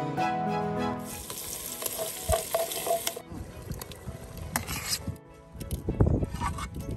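Hot oil sizzling as chopped tomato and spice paste are tipped into a large metal cooking pot for a vaghar (tempering), with knocks of the steel ladle and bowl against the pot and a loud low thump about six seconds in.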